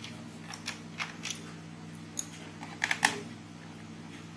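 Scattered small clicks and taps of a screwdriver and hands working the screws out of the underside of a Compaq C700 laptop's plastic case, the loudest cluster of clicks about three seconds in. A steady low hum runs underneath.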